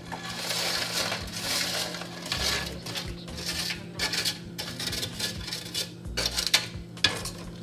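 Utensils scraping and clattering against a pan and dish as pieces of pre-baked sausage are added to a sauce, with a couple of sharp clinks near the end.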